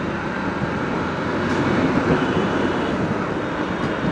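Steady rumble of a moving motorcycle: engine noise mixed with wind on the microphone, getting a little louder about halfway through.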